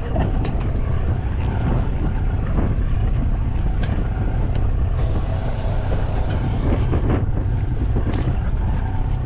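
Wind buffeting the microphone aboard a fishing boat at sea: a steady low rumble with a rushing hiss over it.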